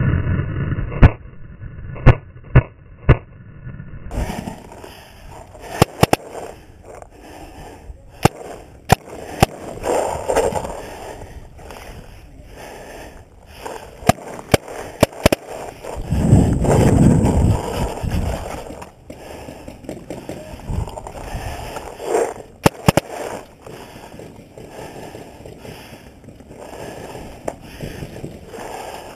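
Paintball gunfire: sharp pops of paintball markers firing and balls smacking the concrete bunkers, coming singly and in short strings of two or three, with the shuffle and rub of the player's own gear between shots.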